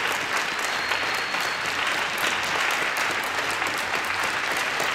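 Audience applauding steadily at the end of a figure skating program, many hand claps blending into an even patter.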